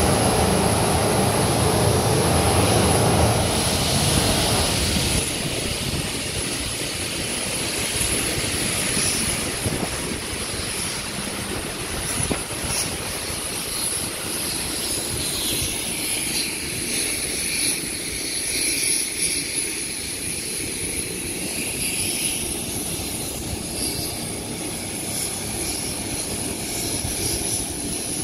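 Boeing 737-400 freighter's CFM56 turbofan engines running at taxi power, with a steady high whine. The engine noise is loudest for the first five seconds or so, then settles to a steadier, lower level.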